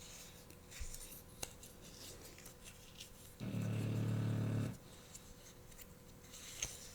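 A sleeping puppy snoring: one steady, low snore a little over a second long about three and a half seconds in, part of a slow snoring rhythm. A few light clicks and soft rustles are heard between snores.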